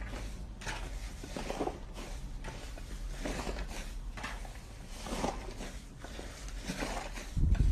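Slime being squeezed and poked by hand, giving irregular soft crackles and squishes, with a louder squelch near the end.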